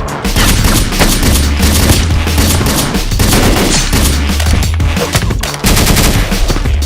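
Rapid, sustained automatic gunfire in dense volleys over loud music with a steady deep bass.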